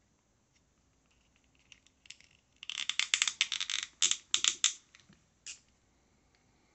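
Hard plastic clicking and scraping as an action figure's foot is fitted onto a plastic display stand: a quick run of clicks from about two and a half to five seconds in, then one more single click.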